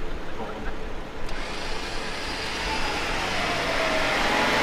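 A motor whine building steadily louder, its pitch sagging and then climbing again, from the recovery of a Jeep stuck on a log.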